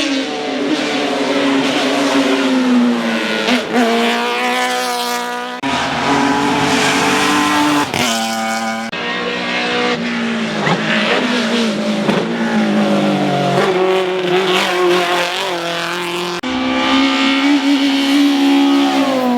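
Hillclimb race cars' engines running hard, the pitch climbing and dropping as they accelerate, shift and brake. The sound changes abruptly several times as one car's run cuts to another's.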